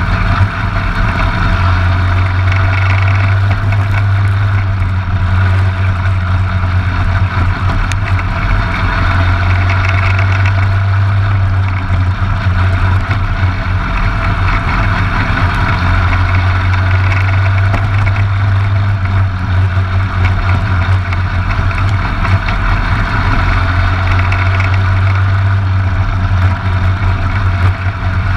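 Briggs & Stratton LO206 single-cylinder four-stroke go-kart engine running steadily at racing speed, picked up by a camera on the kart's front fairing.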